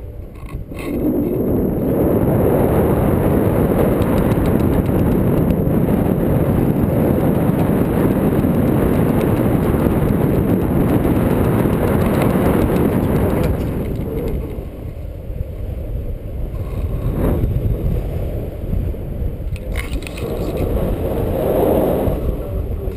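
Wind rushing over the action camera's microphone in paraglider flight, a loud low buffeting that eases off about two-thirds of the way through and swells again near the end, with two short clicks in the quieter stretch.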